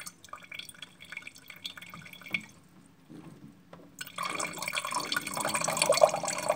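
Remaining water from a boiler's loosened expansion-tank hose nut dripping into a glass jar, in light irregular drips. About four seconds in it becomes a louder steady trickle.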